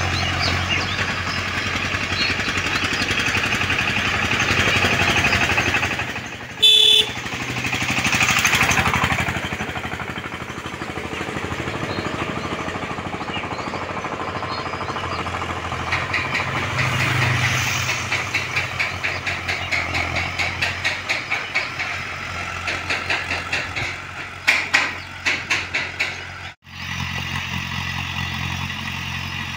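Mahindra Arjun Ultra 555 DI tractor's diesel engine running steadily while it pulls a rotary tiller through dry soil. For several seconds in the second half the sound pulses at about two beats a second, and it breaks off abruptly twice.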